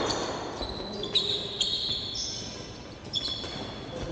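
Players' shoes squeaking on a hard indoor court during a futsal game: several short, high squeaks, one after another, in a large echoing sports hall.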